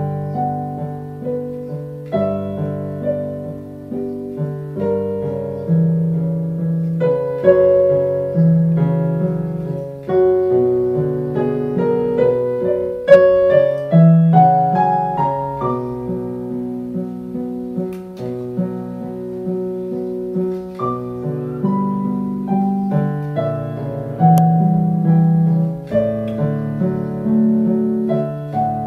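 Portable electronic keyboard played with a piano voice: a solo piece with a melody line over lower accompanying notes, each note struck and then fading.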